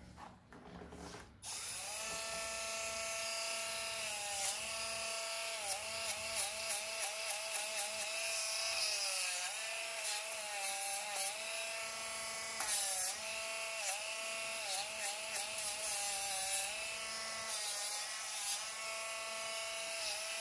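Cordless lighted rotary nail grinder with a diamond bit switches on about a second and a half in and runs with a steady whine. Its pitch dips briefly again and again as the bit is pressed against a dog's toenails to grind them down.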